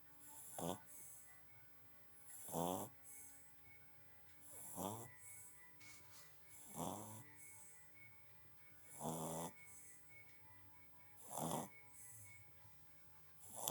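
A three-month-old English bulldog puppy snoring in its sleep: a rattling snore on each breath, about every two seconds, six in a row, each followed by a brief hiss.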